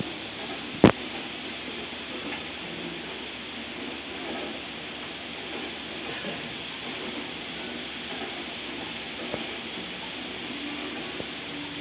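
Steady hiss with the faint running noise of an N-gauge model train on the layout track, broken by one sharp click about a second in.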